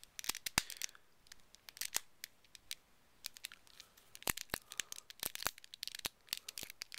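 Plastic puzzle pieces of a black holey megaminx clicking and clacking as it is handled and its pieces are pushed back into place: a piece keeps popping out. Irregular sharp clicks, some in quick runs, with short scraping rustles between them.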